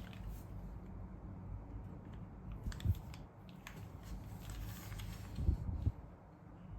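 Typing on a Neo65 mechanical keyboard with stock Kailh BCP switches on an aluminium plate, ABS keycaps and case foam: irregular keystrokes, with heavier strokes about three seconds in and again near five and a half seconds.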